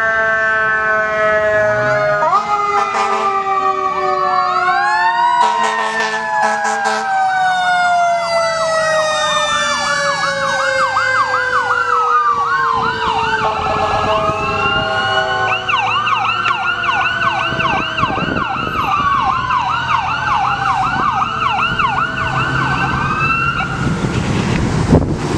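Several emergency-vehicle sirens from a fire engine, a rescue squad truck and an ambulance sound together, overlapping. Early on, slow wailing tones slide downward; from about a third of the way in, fast yelping sweeps take over until near the end.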